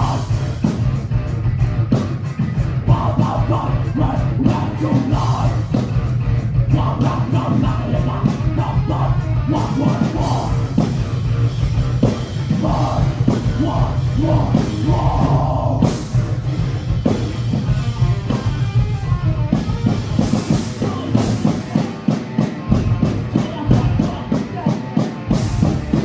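Rock band playing live with a heavy sound: electric guitars, bass and drum kit with rapid drum hits, and a vocalist singing into the microphone.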